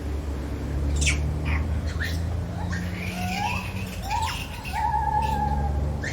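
Lar gibbon calling: a few sharp, high, falling calls, then a run of rising hooting notes over a steady low hum.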